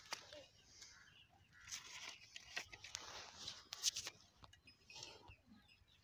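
Faint rustling of a pigeon's feathers being handled, with scattered sharp clicks, the loudest about four seconds in, as the bird is set down.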